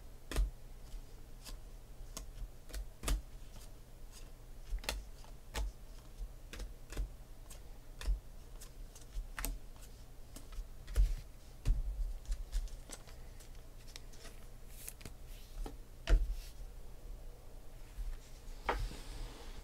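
Glossy 2016 Panini Phoenix football trading cards being flicked one at a time off a stack in the hands, giving an irregular run of light clicks, about one or two a second.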